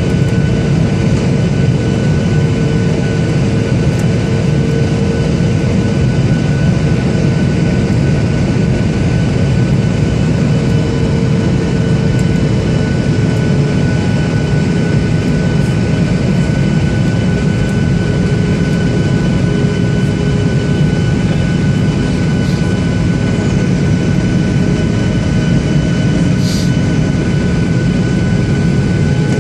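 Cabin noise of a Boeing 737-800 on approach: the CFM56-7B jet engines and airflow make a steady loud roar, with a few held tones above it. A brief high hiss comes near the end.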